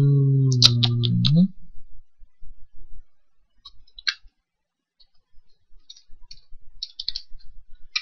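Computer keyboard keys clicking as code is typed and deleted: a quick run of several keystrokes about a second in, then scattered single taps and short runs. For the first second and a half a man's voice holds a long, steady hesitation sound.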